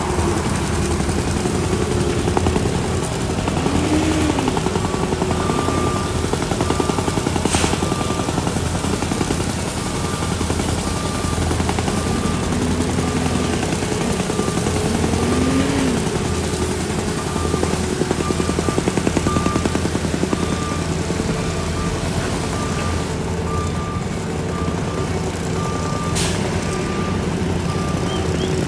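Skid steer's diesel engine running steadily under load, with a reversing alarm beeping at an even pace over it through most of the stretch. Two sharp clicks stand out, one early and one near the end.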